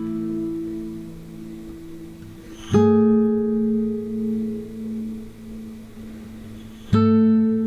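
Background music on acoustic guitar: slow strummed chords, two of them left ringing out, then quicker plucked notes near the end.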